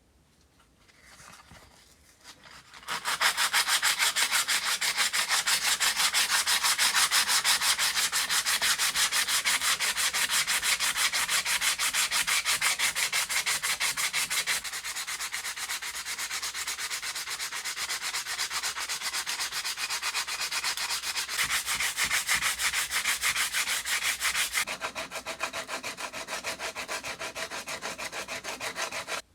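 Hand sanding with sandpaper in rapid, even back-and-forth strokes. It starts about three seconds in after a few light touches and eases off in places.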